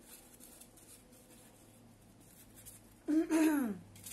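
Faint scratchy handling while glue is spread on a base, then about three seconds in a woman's short wordless vocal sound, under a second long and falling in pitch.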